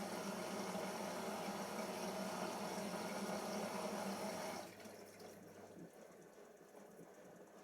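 Siemens iQ 1430 washing machine filling with water for its final rinse: water rushing steadily into the drum, cutting off suddenly a little over halfway through as the fill stops, after which it is much quieter.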